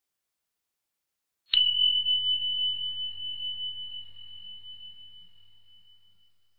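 A single bell-like ding, struck once about a second and a half in, ringing on one high steady tone and slowly fading away: an end-screen chime sound effect.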